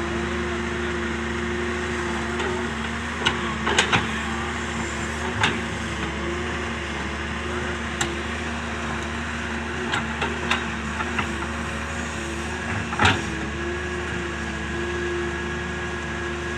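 Doosan DX excavator's diesel engine running steadily at a constant speed, with scattered sharp clanks and knocks of metal, the loudest about thirteen seconds in.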